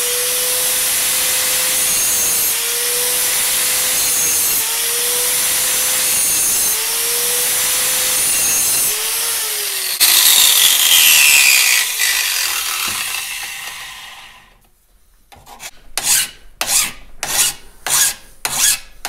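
Angle grinder grinding the steel rail of a chainsaw bar clamped in a vise, taking the top of the rail off at an angle to imitate a worn bar. The motor's pitch dips repeatedly as it bears down, grows louder about ten seconds in, then winds down and stops. Near the end a hand file rasps across the bar in about seven even strokes.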